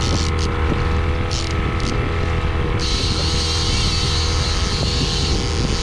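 Boat motor running steadily at trolling speed with an even low drone. About three seconds in, a steady high hiss joins it.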